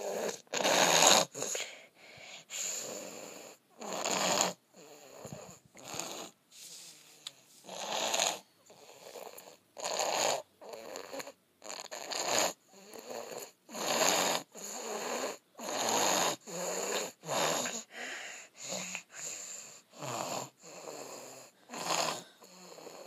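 A sick boy snoring, each breath in and out heard as a rasping rush, about one full breath every two seconds.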